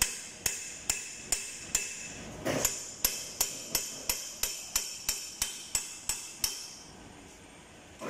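A steady run of about seventeen sharp metal-on-metal hammer taps on the air brake air dryer housing of a Fuso Fighter truck, held in a bench vise. Each strike rings briefly. The taps speed up slightly from about two to about three a second, then stop about two-thirds of the way in. The blows knock its components loose for disassembly.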